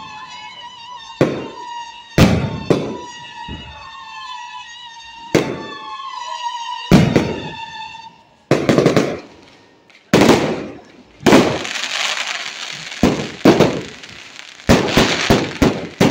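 Aerial fireworks bursting with sharp booms, one every second or two. From about eleven seconds in, many small bursts go off together in a dense, rapid crackling.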